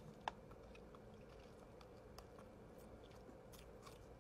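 Faint chewing as a Warhead extreme sour pickle is bitten into, with one sharp click about a third of a second in.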